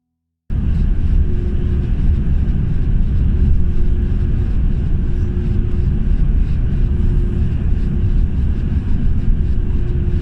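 Steady low rumble of a moving vehicle, with a faint steady hum; it starts abruptly about half a second in.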